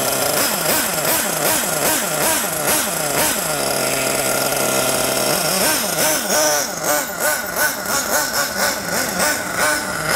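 Nitro RC buggy's small two-stroke glow engine running cold, revved up and down several times, settling to a steady idle for a couple of seconds in the middle, then revving in quick repeated blips as the buggy drives off.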